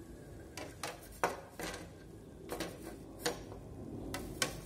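Scattered light clicks and knocks of a fan blade's hub being tried on the ground-down shaft of a washing-machine pump motor; the shaft is still too thick to slide into the hole.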